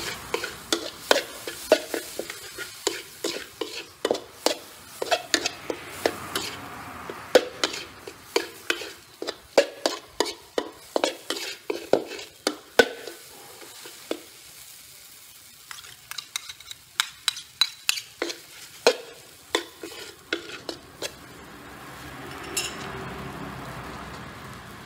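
Metal spatula scraping and clattering against a stainless steel wok as egg and vegetables are stir-fried, over a steady sizzle. The strokes come in quick runs, pause briefly about halfway, and give way mostly to the sizzle near the end.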